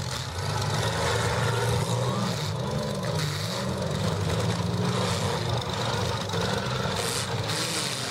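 Engines of several compact demolition derby cars revving and running, their pitch rising and falling again and again.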